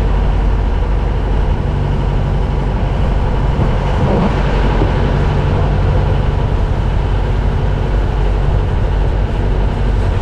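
Sailboat's engine running steadily as the boat motors along, an even, loud drone with a rushing noise over it.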